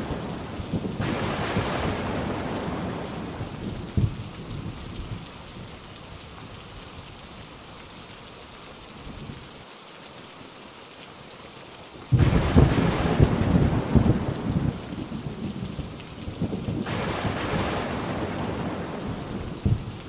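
Thunder rolling over steady rain. A rumble fades over the first few seconds, leaving the rain, then a loud clap breaks in suddenly about twelve seconds in and rolls on for a few seconds. Another rumble swells near the end.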